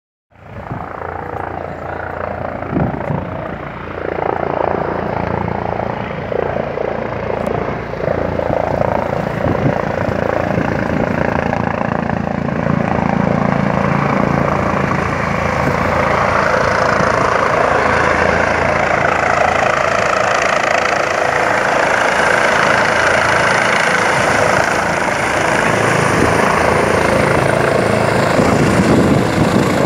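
Air ambulance helicopter approaching and descending to land, its rotor and engine noise growing steadily louder as it comes close and hovers low over the sand.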